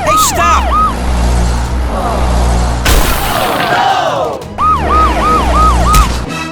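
A siren yelping in quick rise-and-fall cycles, about three a second, in two short runs over a steady low hum. Between the runs there is a noisy whoosh with falling sweeps.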